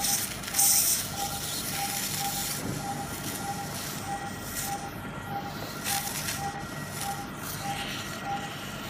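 Operating-theatre patient monitor beeping in time with the pulse, a short even tone about twice a second, over steady high equipment tones. A loud hiss of surgical suction comes about half a second in.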